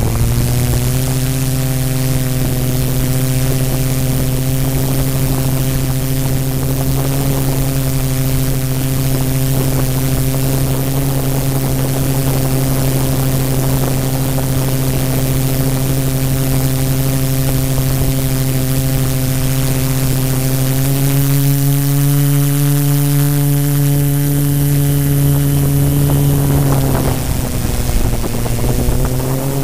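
A multirotor drone's electric motors and propellers, heard through the mic on its own camera: a loud, steady, pitched buzz. About two-thirds of the way through, the pitch rises slightly for several seconds, then dips and settles back as the drone changes its hover.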